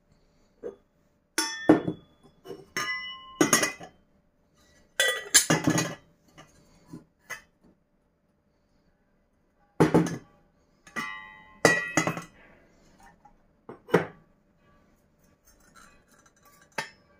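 Enamelled steel teapot and lids clinking and knocking as they are handled and set down on a metal tray: a dozen or so sharp knocks in clusters, some ringing briefly.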